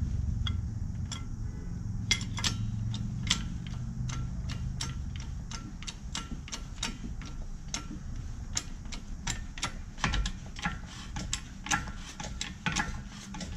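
Hand-pumped hydraulic shop press clicking about two to three times a second as its handle is worked in short strokes, slowly pressing a new part into an aluminium upper control arm. A low hum underneath fades out about halfway through.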